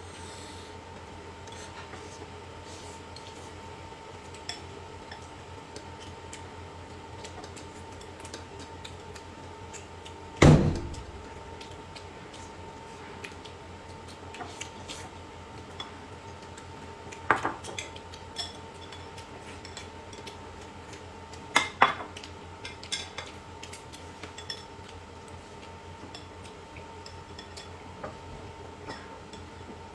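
Dishes and cutlery clinking and knocking at a meal, with one loud thump about ten seconds in and a few sharper knocks later. A steady hum runs underneath.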